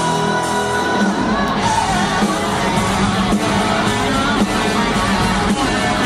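Live hard rock band playing: electric guitar through Marshall amplifiers, with drums and a singing voice.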